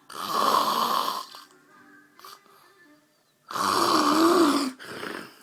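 A man snoring: two loud snores about three seconds apart, each a little over a second long, the second with a wavering pitch and a short, weaker breath right after it.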